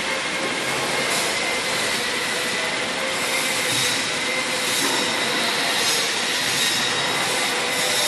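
Brush-roller potato peeling and washing machine running steadily, its six brush rollers turning and scraping a load of potatoes, with faint high whines over a loud, even grinding noise.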